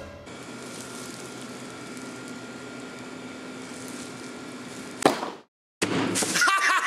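Steady low room hum with a faint constant tone, unvoiced and even. About five seconds in comes a short loud whoosh, then a moment of dead silence, and louder sound with shifting pitches starts near the end.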